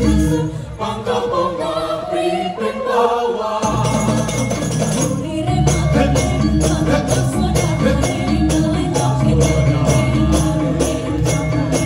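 Balinese gong kebyar gamelan played by a women's ensemble, with a women's choir singing. For the first few seconds the voices lead over thin accompaniment. Then the full gamelan comes back in with a steady rhythm of sharp metallic strikes.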